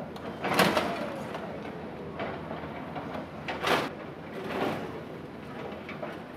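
Volvo crawler excavator's bucket crushing a row of motorcycles and scooters: four sudden crunches of bending metal, the loudest about half a second in with a falling squeal after it, over a low steady drone.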